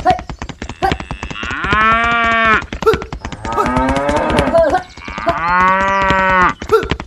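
Cattle mooing: two long moos a few seconds apart, with frequent short clicks and knocks around them.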